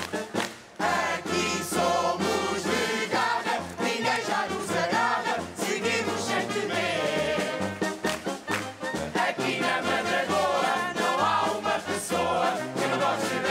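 Marcha popular song sung by a large choir of marchers with band accompaniment, the bass stepping from note to note, with a brief pause just under a second in.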